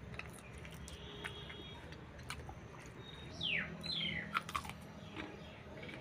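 Birds chirping: a few short calls falling in pitch, about halfway through, amid scattered faint clicks.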